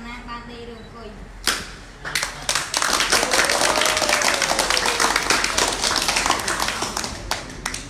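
Applause from a room of young novice monks: one sharp clap about one and a half seconds in, then dense hand-clapping that starts about two seconds in and runs for about five seconds before fading out.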